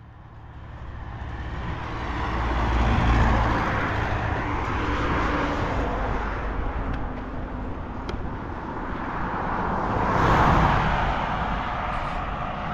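Road traffic: a car passes close by, its engine and tyre noise swelling to a peak about three seconds in and fading, then a second car swells past about ten seconds in.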